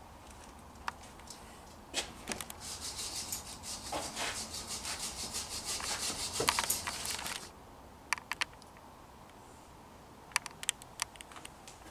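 Hand scraping of the intake manifold's mating face, clearing old gasket residue before the new carburettor flange goes on: quick repeated rasping strokes for about five seconds that stop suddenly, followed by a few light clicks of the tool.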